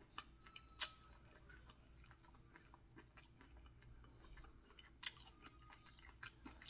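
Faint close-up chewing of a crispy fried chicken thigh: soft wet mouth clicks and small crunches, the loudest about a second in and around five seconds in.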